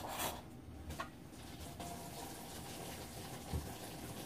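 Beef bulgogi simmering in its broth in a frying pan on a portable gas burner: a steady bubbling hiss. A brief knock sounds right at the start, and a low thump comes about three and a half seconds in.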